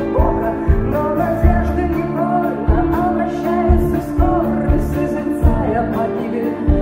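Live band music: a woman singing a melody while playing acoustic guitar over sustained accompaniment, with a low beat about once a second.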